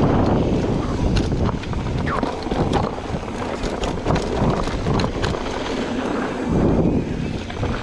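Wind rushing over the microphone and knobby tyres rolling fast on a dirt trail as a mountain bike descends, with the bike rattling and clicking over bumps every second or so.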